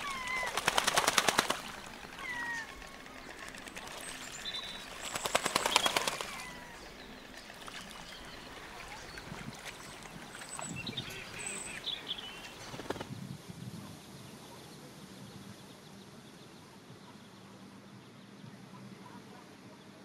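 Mallards and ducklings on a pond: two rapid rattling bursts of about a second each, one at the start and one about five seconds in, among short high peeps. A few more peeps come around eleven to twelve seconds in, then only a faint steady background.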